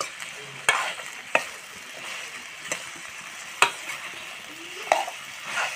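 Chunks of meat sizzling in hot oil in a metal kadai while a metal ladle stirs them, knocking sharply against the pan about five times.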